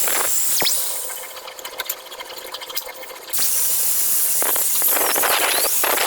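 Hand angle grinder rigged as an improvised milling machine, cutting with a loud hissing grind. The grind fades away about a second in, leaving a faint steady tone and light ticks, then cuts back in sharply after about three seconds.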